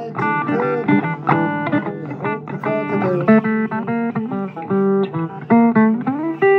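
Guitar playing blues: a run of single plucked notes and chords, with a few notes slid or bent upward near the end.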